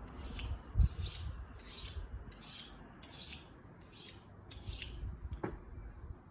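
Knife blade drawn along a honing steel in light alternating strokes, about seven short rasping swipes a bit under a second apart, taking off the burr left from sharpening on a stone. A low thump about a second in and a short click near the end.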